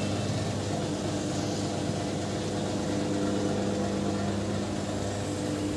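Engine idling steadily with an even low hum.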